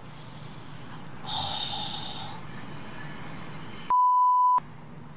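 A woman's sharp, hissing breath in pain from a bull ant bite, then about four seconds in a short, steady censor bleep.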